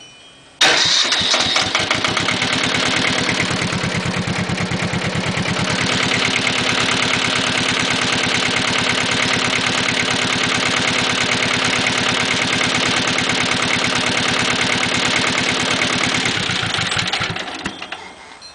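Mitsubishi Beaver S270 tractor's diesel engine starting about half a second in and running with a steady, fast clatter, its rocker cover off and valve clearances freshly adjusted. Near the end it shuts down, the firing slowing as it dies.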